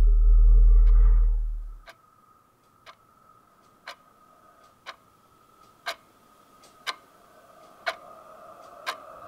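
A deep low rumble that cuts off about two seconds in, then a quartz wall clock ticking once a second, with a faint high held tone growing louder behind it near the end.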